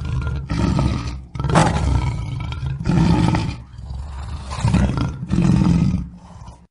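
Lion roaring: a series of about five deep, repeated roars spaced a little over a second apart, trailing off near the end.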